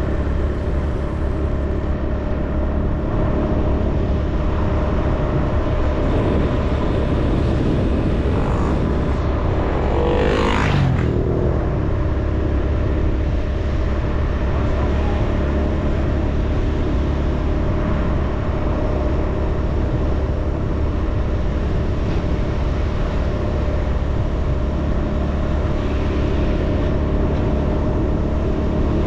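Engine of the filming vehicle running steadily at cruising speed, with wind and road noise on the microphone. About ten seconds in comes a brief rush that falls in pitch.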